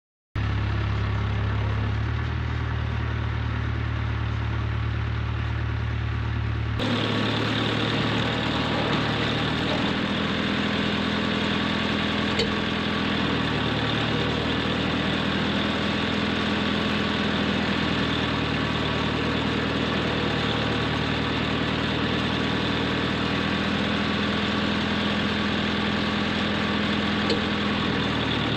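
Tractor engine running steadily at a low, even speed; about seven seconds in the sound turns brighter and fuller.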